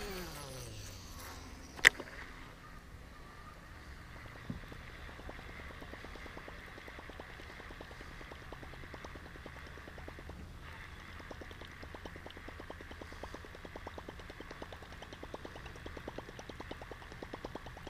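Baitcasting reel in use: a falling whir as the spool runs out on a cast, a sharp click about two seconds in, then from about five seconds a fast, even ticking as the reel is cranked to retrieve a topwater chopper bait.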